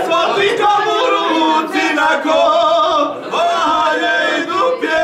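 A group of men singing a traditional folk song together, unaccompanied, their voices overlapping in long, wavering held notes.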